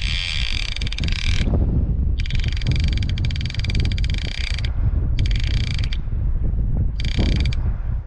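Overhead fishing reel's clicker ratchet buzzing as a fish pulls line off the spool: a shark taking the bait and running. The buzzing comes in runs of one to two and a half seconds with short breaks between, as the fish surges and pauses.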